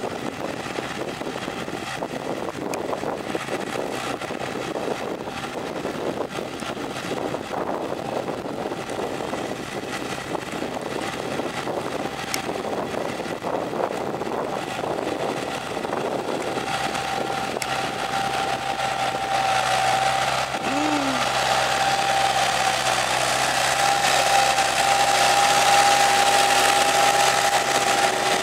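Small Kumiai ST2620 diesel tractor engine running under way, getting louder as it comes close. A steady high whine joins in over the second half.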